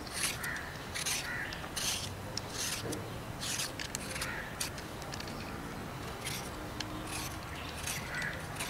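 Vegetable peeler scraping the skin off a raw red-skinned potato: a run of short rasping strokes, about two a second, with a pause of about a second and a half past the middle.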